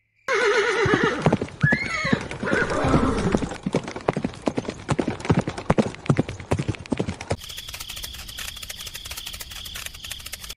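A horse whinnies with a wavering, falling call, then its hooves clip-clop in a steady walking rhythm. About seven seconds in, the sound switches to crickets chirping.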